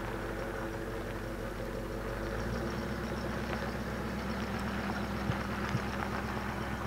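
1956 Pontiac Chieftain station wagon's V8 engine running steadily at low speed as the car rolls slowly past, with a few light clicks near the end.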